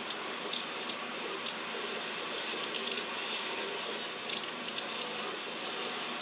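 Steady background hiss with a few scattered light clicks.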